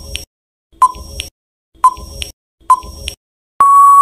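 Quiz countdown timer sound effect: short beeps about once a second, then a long steady buzzer tone near the end signalling that time is up.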